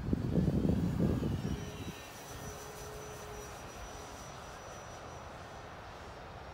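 Brushless electric motor and propeller of an E-flite Air Tractor 1.5m RC plane flying overhead, a faint steady whine. Wind buffets the microphone with a low rumble for about the first two seconds.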